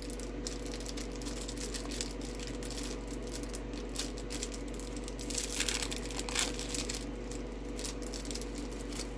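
Thin plastic bags crinkling as they are handled, with a louder flurry of rustling a little past halfway, over a steady low hum.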